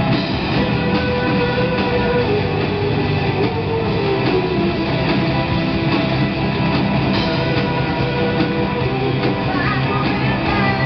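A live rock band playing: electric guitars, bass guitar and a drum kit through a PA, steady and loud throughout.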